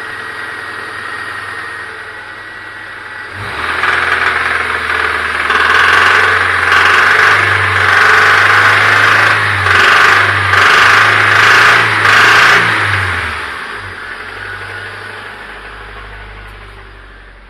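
Honda Civic Fastback engine idling, then revved in a run of about six blips before dropping back to idle, with a wild knock from worn connecting-rod bearings.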